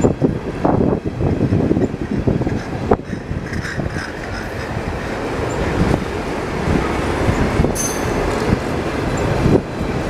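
Tank cars of a freight train rolling past: a steady rumble of steel wheels on rail with repeated clacks as the wheels cross rail joints, and a brief high-pitched wheel squeal late on.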